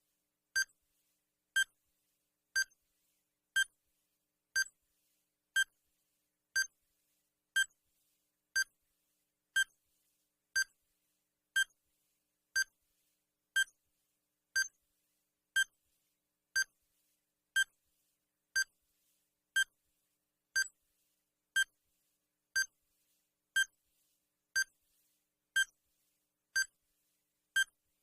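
Digital countdown timer sound effect: a short, high electronic beep once a second, marking each second of the countdown.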